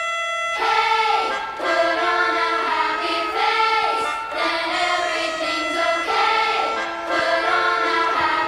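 Background pop song: held instrumental notes, then a singing voice comes in about half a second in over the accompaniment.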